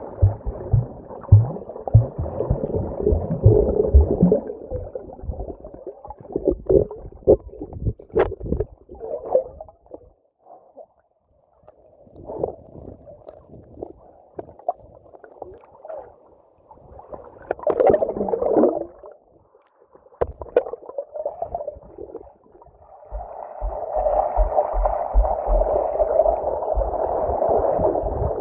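Muffled underwater sound picked up by a submerged camera: water gurgling and swishing as a snorkeler swims, with runs of low thumps near the start and again near the end, and a brief falling gurgle in the middle.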